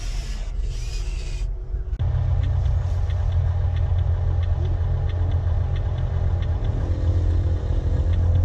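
A short stretch of music cuts off about two seconds in, giving way to a steady low rumble with faint light ticking over it.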